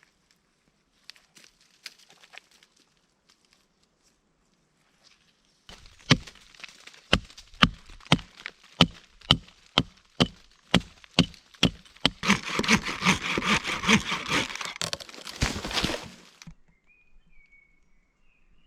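Wood being chopped with a hand tool: sharp blows at about two a second for six seconds, then a fast run of rapid strokes for about four seconds that stops suddenly.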